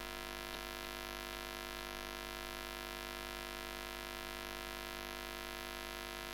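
Steady electrical mains hum with hiss from the recording chain, with a few faint clicks.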